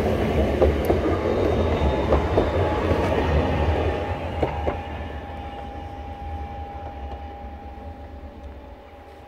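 EN62A-102 electric multiple unit passing close and rumbling away, its wheels clacking sharply a few times over rail joints in the first half. It then fades steadily into the distance, leaving a thin steady whine.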